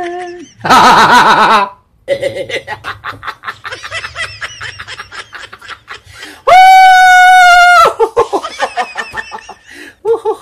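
A man laughing: a loud outburst about half a second in, then a long run of short, rapid laughs. About two-thirds through, a loud high vocal note is held for about a second and a half, followed by more laughter.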